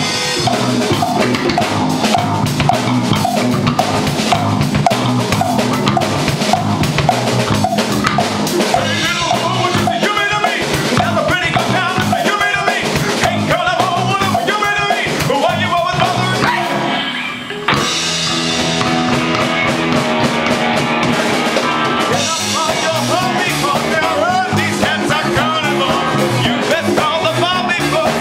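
A funk band playing an instrumental section live, with drum kit, congas, guitar and keyboard. The groove drops out briefly about two-thirds of the way through and comes back in on a sharp hit.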